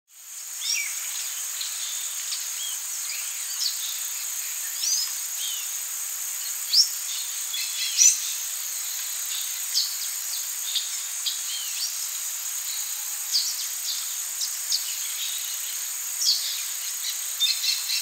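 Outdoor nature ambience: a steady, high insect drone with many short bird chirps and calls over it. It fades in at the start.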